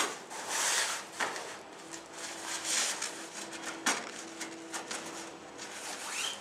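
Softbox fabric rustling in irregular swells as it is handled and unrolled on a table, with two sharp knocks, about a second in and near four seconds.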